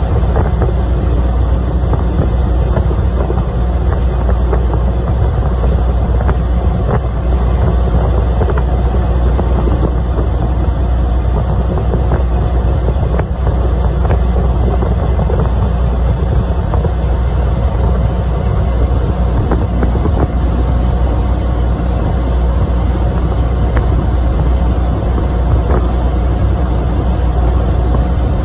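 Motorboat underway: a steady run of engine and water noise, with wind rumbling on the microphone.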